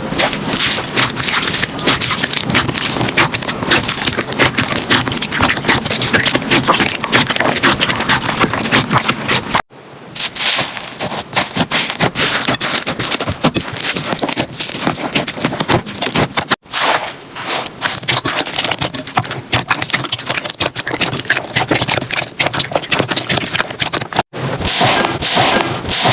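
Slime being handled and squished: dense sticky crackling and popping, in short clips that cut off abruptly about ten, seventeen and twenty-four seconds in.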